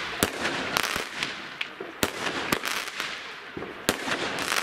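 Aerial fireworks going off: a string of sharp bangs from bursting shells at irregular intervals, with a steady hiss between them.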